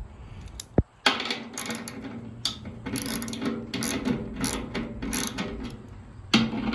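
Hand tools working metal on a seized condenser fan motor: a sharp click, then a quick run of irregular clicking and scraping.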